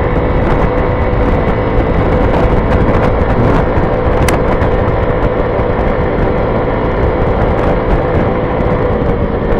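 Honda Ruckus scooter's small single-cylinder four-stroke engine running at a steady cruising speed, heard through a microphone inside the rider's helmet, with a heavy wind rumble over it. There is a brief click about four seconds in.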